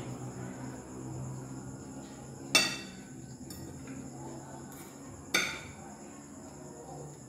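Metal cutlery striking a plate twice, about three seconds apart, each a sharp clink with a short ring, during a meal.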